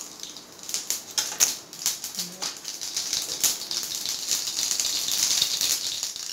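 Mustard seeds crackling and popping in hot oil in a frying pan, the first step of a tempering (tadka). Scattered sharp pops ride over a sizzle that grows louder over the few seconds.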